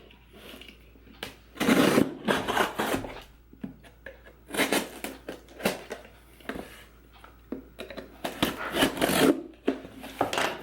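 A parcel being opened by hand: its packaging rustles and tears in irregular bursts, with a few clicks between them.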